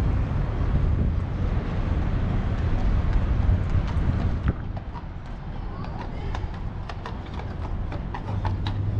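A horse's hooves clip-clopping in an irregular run of sharp clicks, starting about halfway through, over a low rumble that is heaviest in the first half.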